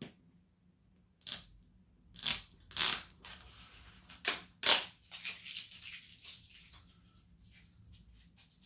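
Packaging being unwrapped by hand: five sharp crackles and rips in about four seconds, then a softer rustle.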